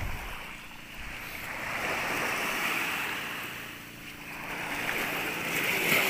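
Small waves washing onto the shore, swelling and fading twice.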